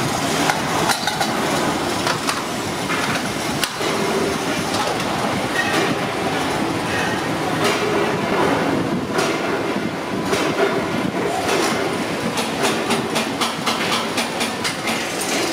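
Multi-station metal-spinning machine running, its rotating chucks and rollers working the edges of aluminium pressure-cooker lids, with a steady mechanical din and rattling metal clatter. The clatter grows busier about halfway through.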